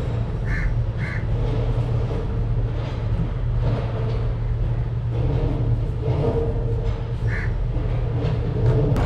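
A crow cawing three times, two short caws close together near the start and one more about seven seconds in, over a steady low rumble of engines.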